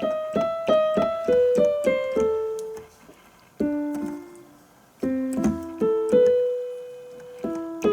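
Yamaha PSR-EW310 keyboard playing in a piano voice, a simple melody one note at a time. A quick run of notes steps down in pitch, a short pause follows, then a few more notes, one held for about a second.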